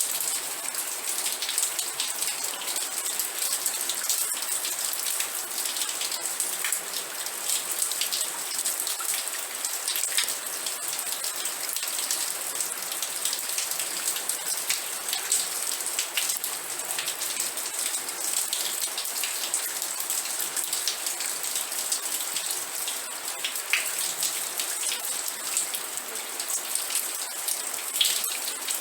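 Steady rain falling, a dense hiss with many close drop ticks on a hard surface.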